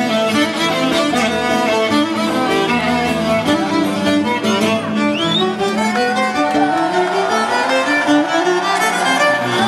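Greek island folk dance music led by a violin playing a quick, running melody over a steady low note and string accompaniment.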